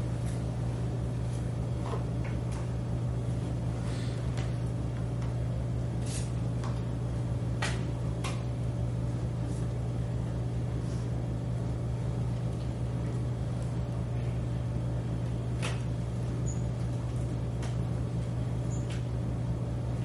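Steady low hum of a classroom's machinery, with a scattered series of small sharp clicks and taps.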